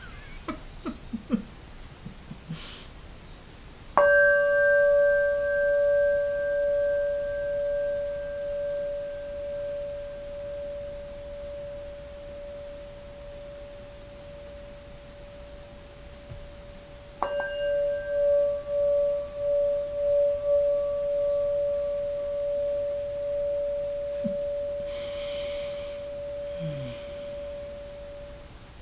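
A singing bowl struck twice, about four seconds in and again about seventeen seconds in. Each strike rings out in one long, slowly fading tone, and the second one wavers as it rings.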